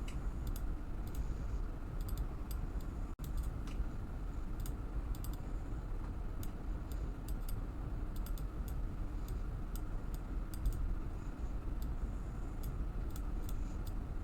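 Irregular clicking of a computer mouse and keyboard during design work, scattered single clicks and short clusters over a steady low hum.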